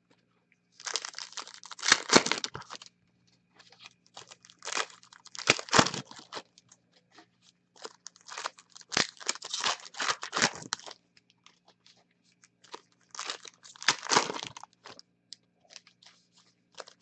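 Trading-card box and foil packs of 2017 Panini Diamond Kings baseball being handled and torn open: bursts of crinkling and tearing wrapper, about five of them, with short pauses between.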